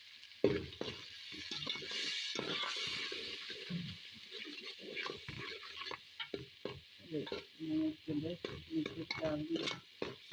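Onions frying and sizzling in hot oil in a cooking pot, stirred with a spoon that scrapes and clinks against the pot. It starts suddenly and loudly about half a second in, then a steady hiss continues with frequent short scrapes.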